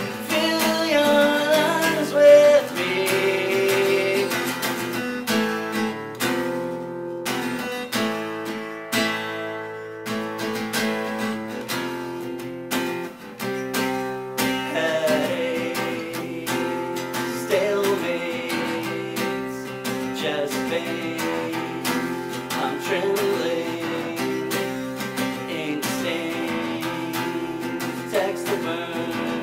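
A man singing over a strummed acoustic guitar, with a stretch of guitar alone about a quarter of the way in.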